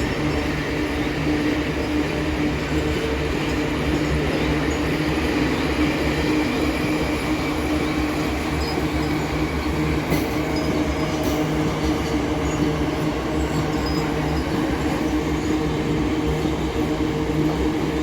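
Loaded iron-ore freight train rolling steadily past, a continuous rumble of wagons on the rails with a steady hum running through it.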